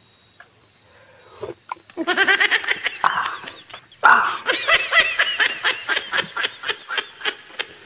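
A man laughing hard in a long run of rapid, high-pitched ha-ha pulses, about four or five a second, starting about two seconds in after a quiet stretch.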